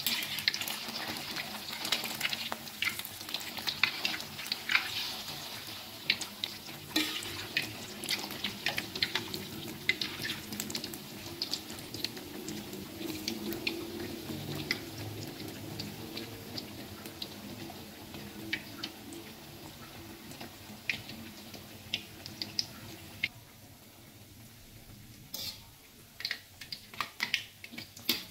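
Beef meatballs deep-frying in hot oil in a wok, the oil crackling and popping steadily. The crackle dies down about three quarters of the way through, then a few sharper clicks come near the end.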